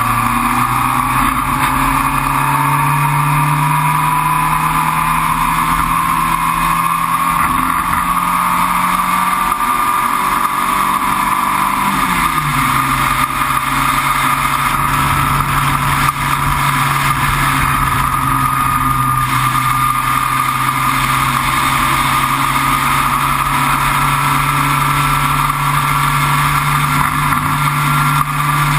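Sports racing car's engine pulling hard on track, heard from on board over steady wind and road noise. The engine note climbs slowly, drops once about twelve seconds in at an upshift, then climbs again.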